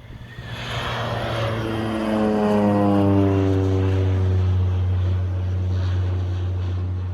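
Crop-dusting airplane passing low overhead. Its propeller engine grows loud within about a second, then its pitch falls as it goes by and settles into a steady low drone.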